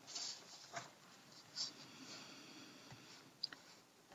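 Quiet room tone with a few soft short noises, then a sharp computer mouse click about three and a half seconds in.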